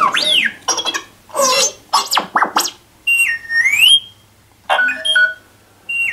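R2-D2 droid sound effects played from a sound card through small Logitech computer speakers inside a full-size replica: a run of electronic beeps, chirps and warbling whistles, with a longer whistle that dips and climbs back up about three seconds in.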